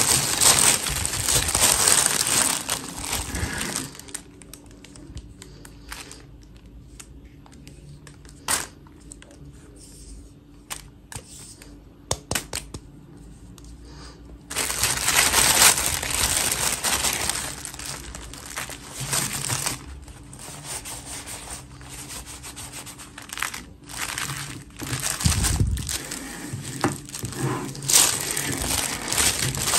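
A clear plastic bag crinkling as hands handle a doll inside it and pull her out. The crinkling is loud at the start and again from about halfway on, with a quieter stretch in between broken by a few sharp clicks.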